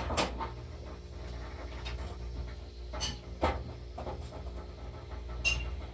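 A dog panting in a few short breaths over a steady low hum.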